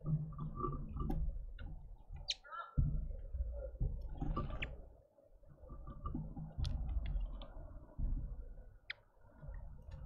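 Small birds at a feeder giving short high chirps now and then, with clicks and taps, over a low rumble that swells and fades every second or two.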